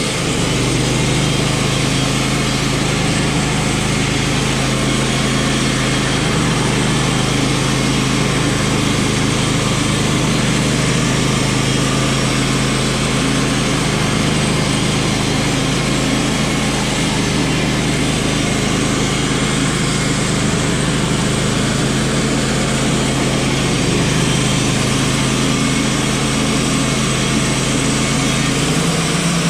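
Wood-Mizer LT35 band sawmill running steadily under load, its engine humming evenly while the band blade saws lengthwise through a fir log.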